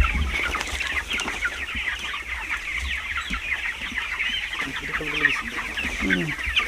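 A large flock of broiler chickens cheeping and chirping continuously, many birds calling over each other, with a few lower calls about five and six seconds in.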